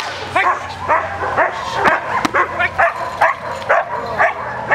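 German Shepherd barking over and over in short, high-pitched barks, about three a second, while worked up during protection work on a decoy's bite sleeve.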